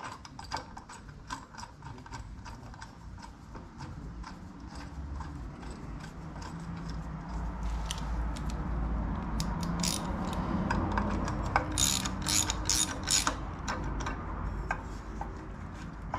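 Socket ratchet clicking as a grade 8 bolt is run into the driver clutch on the engine's crankshaft, in quick runs of clicks around the middle and again later, over a low steady rumble.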